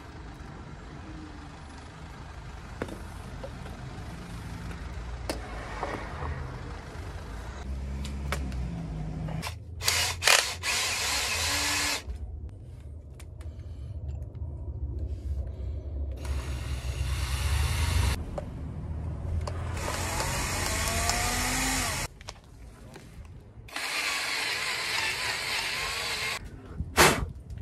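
Power tool run in four bursts of about two seconds each, working at a stuck, breaking bolt, over a steady low rumble.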